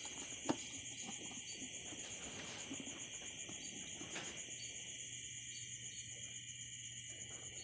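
Steady high chirring of insects, with faint handling noise from a plastic motorcycle headlight assembly being pried apart by hand. A sharp plastic click about half a second in, and a weaker one about four seconds in.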